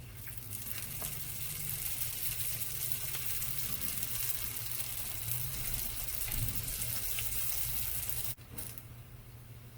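Potato samosas deep-frying in hot oil: a steady, dense sizzle that stops abruptly about eight seconds in.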